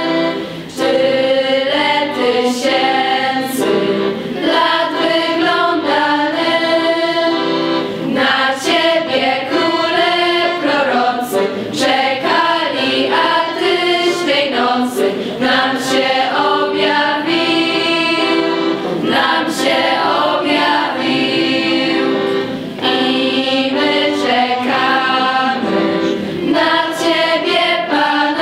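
Choir of teenage students singing a Polish Christmas carol.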